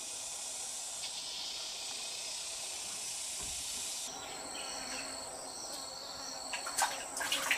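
Insects chirring steadily and high-pitched; about four seconds in the sound changes from an even hiss to several steady whistling tones. A few short knocks come near the end.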